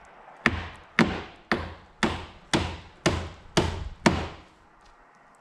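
Hammer driving nails into primed 1x4 pine door trim: eight sharp strikes, about two a second, each with a short ring, stopping near the end.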